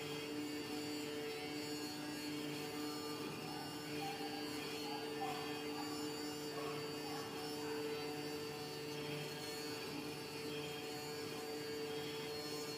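CNC oscillating-knife foam cutter running while it cuts a thick PE foam sheet: a steady machine hum made of several constant tones, at an even level throughout.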